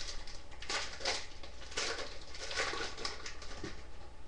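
Trading cards and their foil pack wrapper being handled, in several short rustling, crinkling bursts.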